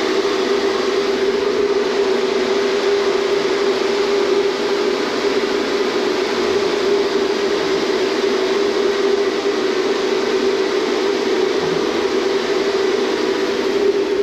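Steady loud hum of the caravan's air-conditioning unit running inside a moving, towed caravan, over road noise.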